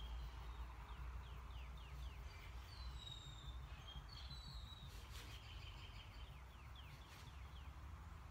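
Faint birdsong: runs of quick falling chirps and a few short whistled notes, over a steady low hum, with a few soft clicks in the second half.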